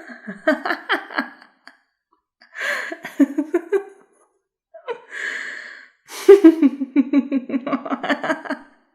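A woman's evil laugh: three bouts of rapid, pulsed laughter, each set off by a sharp breath in. The last bout is the longest and loudest.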